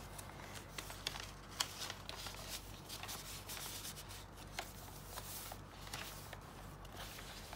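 Paper rustling as a handmade journal's coffee-dyed pages and paper inserts are handled and flipped through, with many small ticks and taps.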